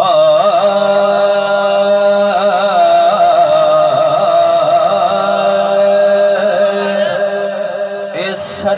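A man singing a naat through a microphone and PA loudspeaker, holding long wordless notes that waver and ornament up and down without breaking.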